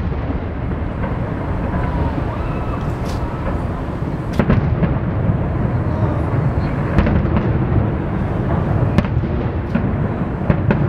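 Fireworks display heard from about a kilometre away: a continuous low rumble of bursting shells, with a sharp bang every couple of seconds.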